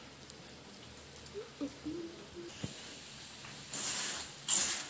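Spoon stirring crunchy fried boondi with peanuts and curry leaves in a metal bowl: a dry rustling clatter that starts about three and a half seconds in and grows louder. Before it there is only a faint click.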